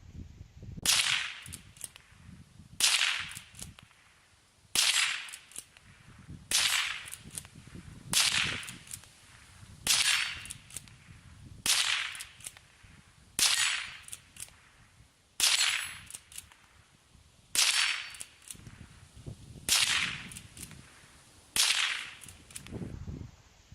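Henry lever-action .22 LR rifle firing twelve shots at an even pace, about one every two seconds. Each is a sharp crack with a short ringing tail, with faint clicks between shots as the lever is worked.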